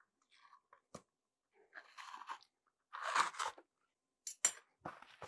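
Membrane being pried up with a knife tip and peeled off the bone side of a rack of raw pork baby back ribs: short tearing sounds in several bursts, loudest about three seconds in, with two sharp clicks a little after four seconds.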